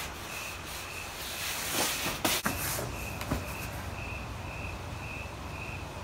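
A shot man collapsing to the floor, with a few knocks and thuds about two seconds in, over a steady hiss and a faint high chirp repeating about twice a second.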